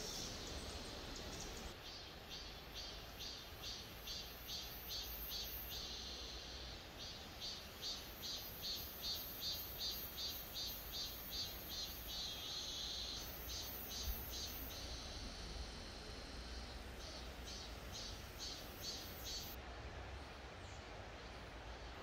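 An insect calling in a run of short, evenly repeated high chirps, about three a second, breaking off about fifteen seconds in and starting again briefly before the end, over a faint steady background hiss.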